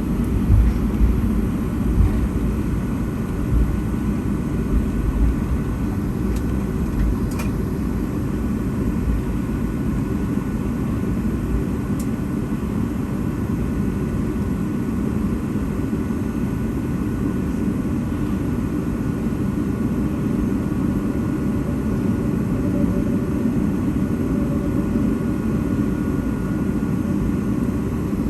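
Inside the cabin of a Boeing 757-232, steady engine and airflow noise from its Pratt & Whitney PW2000 turbofans during the takeoff. Heavy irregular low rumble and bumps in the first several seconds fade to a smoother steady noise, as the takeoff roll on the runway gives way to flight.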